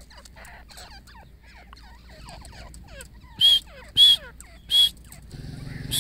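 Female grey francolins calling: a run of faint, quick falling notes, then three loud, sharp calls about two-thirds of a second apart in the second half.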